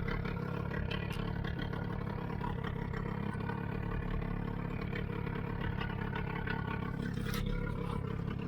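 Boat engine running steadily at a low, even speed, with a couple of faint clicks.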